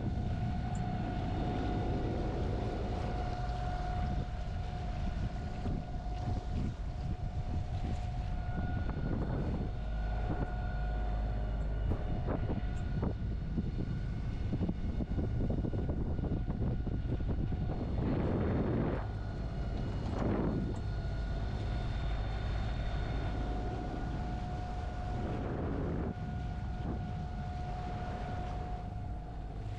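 A sailing yacht's inboard engine running steadily while motoring, a constant drone with a steady whine in it, with wind on the microphone. Water rushes past in a few swells, twice close together about two-thirds of the way in.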